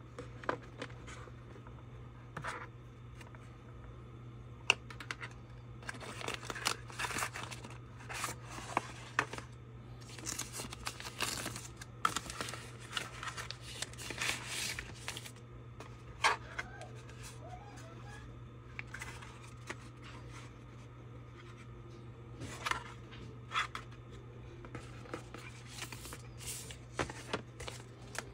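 Plastic wrapping and cardboard packaging rustling and crinkling as they are handled during an unboxing, in irregular bursts with a few sharp clicks and taps from the box. A steady low hum runs underneath.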